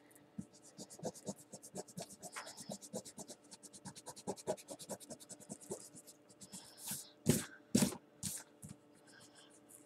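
Felt-tip marker scratching quickly back and forth on paper as it fills in a shape, several strokes a second. About seven seconds in come three louder brushing strokes.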